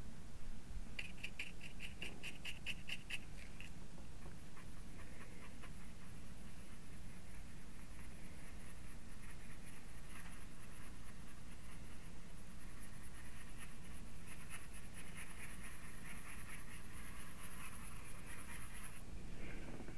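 Small paintbrush dabbing and stroking acrylic paint on a hardboard panel. A quick run of light taps lasts from about a second in to nearly four seconds, then softer continuous brushing stops about a second before the end, over a steady low hum.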